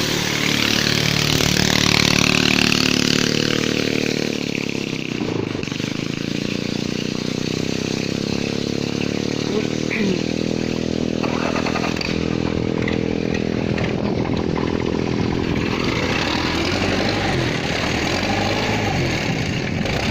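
Rice combine harvester's engine running hard, its pitch dipping about five seconds in and climbing back, then holding steady with a slight waver near the end.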